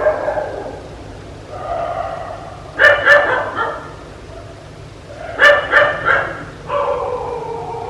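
Dog barking in two quick bursts of three or four barks, about 3 seconds and 5.5 seconds in, with longer drawn-out calls between them.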